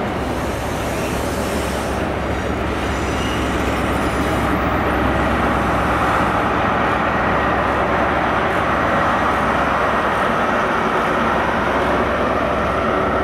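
A GWR High Speed Train passing: Mark 3 coaches rolling by on the rails, then its trailing Class 43 diesel power car. The steady rumble of wheels and engine grows louder about four seconds in as the power car draws near.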